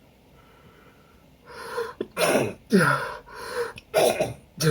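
A man's sneezing fit. After a quiet second and a half comes a run of short, loud voiced bursts, about two a second, each falling in pitch, as he hitches and sneezes.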